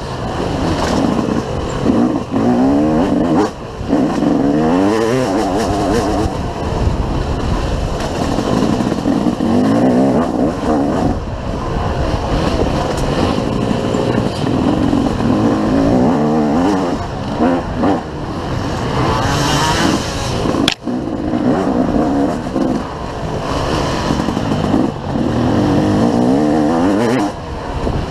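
Dirt bike engine heard from the rider's helmet, revving up and falling back over and over as it accelerates and backs off on a dirt trail. A single sharp knock about three quarters of the way through.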